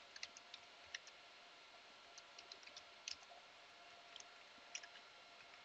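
Faint computer keyboard typing: scattered, irregularly spaced keystroke clicks as a terminal command is typed.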